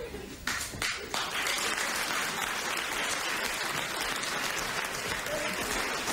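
Studio audience applauding: a few single claps about half a second in, then steady applause.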